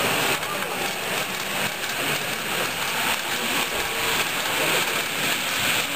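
Model container freight train running along the layout's track: a steady hissing rattle of small wheels on the rails.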